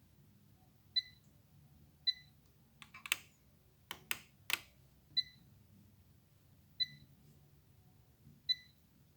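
Korg Triton synthesizer playing a sugarcane-field ambience patch: short high chirps repeating about every second or so, with a brief run of sharp clicks about three to four and a half seconds in.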